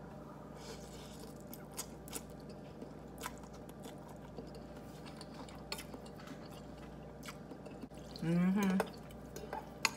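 A person chewing a mouthful of ramen noodles, with small wet mouth clicks and smacks. A little after eight seconds in comes a short hummed "mmm" while tasting.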